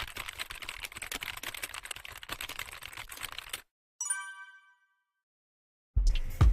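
Rapid, dense crackling clicks for about three and a half seconds, then, after a short gap, a single bright chime that rings out and fades within a second.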